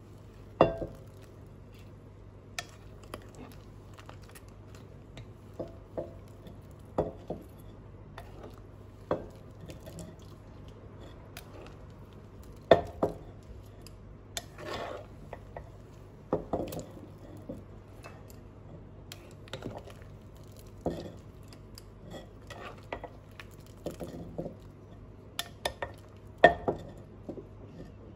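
A ladle clinking and scraping against a pot as soup is stirred and scooped out, in irregular knocks every second or so, with a few louder ones. A steady low hum runs underneath.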